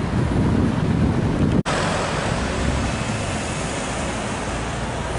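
Steady road traffic noise with wind rumbling on the microphone, broken by a split-second dropout at an edit about one and a half seconds in.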